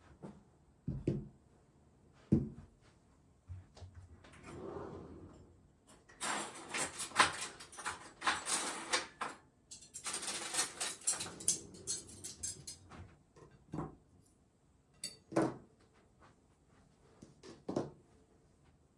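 Ceramic dinner plates set down on a table with two dull thuds. A few seconds of clattering and scraping follow, then single light clinks as a metal knife and fork are laid beside the plates.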